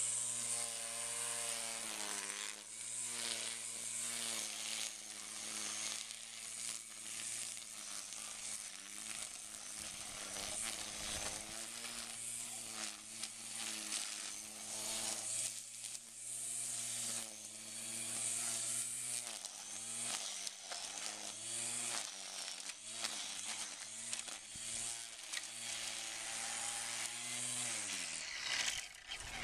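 Black & Decker cordless string trimmer's electric motor running with a high whine, its pitch dipping and recovering repeatedly as the spinning line cuts, then winding down near the end.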